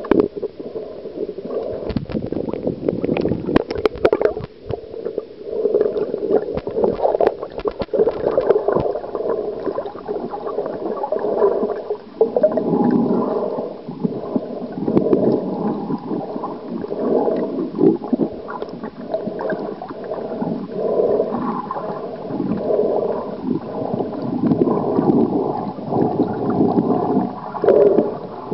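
Muffled gurgling and sloshing of water heard through a camera submerged underwater, swelling and fading unevenly, with a few sharp clicks a few seconds in.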